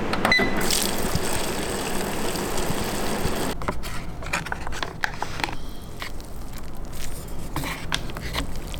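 A hot-water dispenser gives a short beep, then hot water pours steadily into a paper instant-noodle cup for about three and a half seconds. After that comes scraping, crackling handling of the cup: the paper lid is peeled back and chopsticks stir the noodles.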